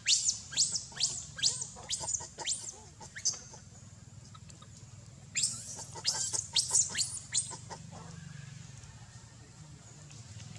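Infant macaque crying: two runs of short, high-pitched squeals, each falling in pitch, about two or three a second. The first run fills the opening three seconds and the second comes about two seconds later.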